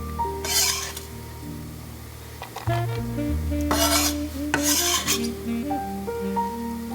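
A kitchen utensil stirring and scraping against a dish in three short bursts, over soft background music.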